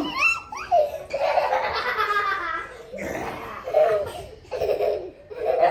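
A young child laughing in repeated high-pitched bursts.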